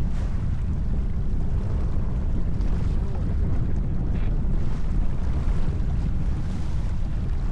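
Wind buffeting the microphone, a steady low rumble, over water rushing along the hull of a J24 keelboat under sail.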